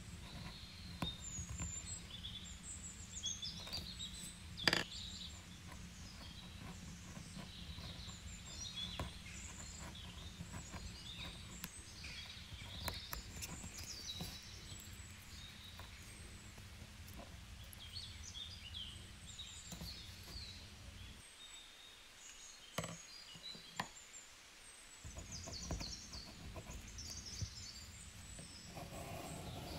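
Birds chirping and singing throughout, over a low steady hum that drops out for a few seconds past the middle. Small taps and clicks from a pencil, cardstock and ruler being handled on a cutting mat come through now and then, the sharpest about four and a half seconds in.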